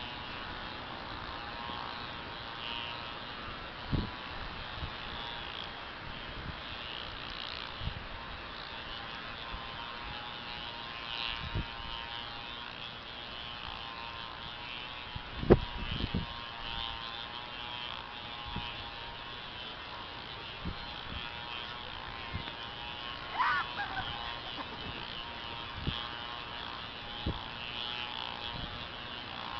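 A steady whirring, buzzing hum with scattered soft thumps. About three-quarters of the way through, a horse cantering past on grass gives a short cluster of hoofbeats.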